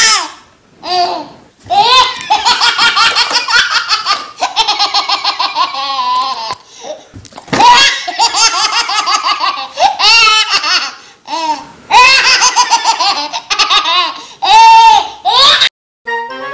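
Hearty, high-pitched human laughter in long bursts, each a quick run of pulses, with short breaks between them.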